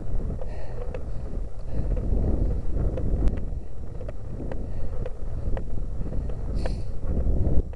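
Wind buffeting the microphone of a bike-mounted camera: a dense, uneven low rumble during a slow uphill ride, with scattered light clicks and a short hiss about seven seconds in.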